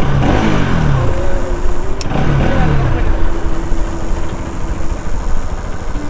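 Motorcycle engine running on the move, with wind rumble on the microphone. An engine note falls in pitch twice: once at the start and again about two seconds in.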